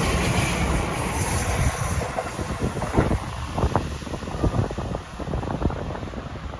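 Keihan 5000-series electric train running on the rails. Its noise drops off sharply about two seconds in, and a scatter of sharp clicks follows as it moves away.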